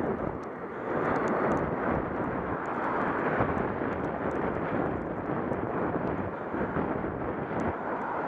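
Wind rushing over a handlebar camera's microphone on a moving road bike, with tyre hiss on the wet road; the rushing rises and eases a little.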